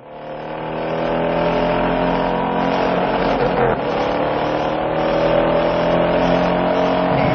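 A car engine revving, its pitch climbing slowly over several seconds, with a brief drop about three and a half seconds in before it climbs again.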